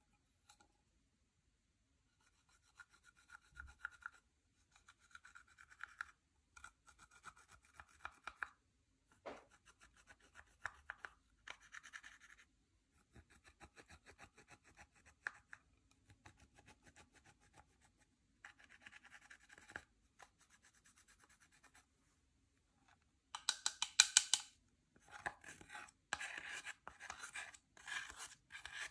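Makeup being worked into slime, heard as short bursts of scratchy rubbing and scraping, each a second or two long with brief pauses between. The loudest burst comes about 24 seconds in.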